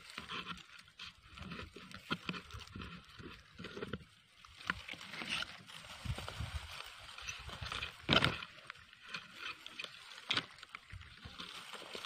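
Footsteps and the rustle of ferns and grass brushing against someone walking through dense undergrowth, in an irregular run of crackles and soft thuds, with a sharper knock about 8 s in and another about 10 s in.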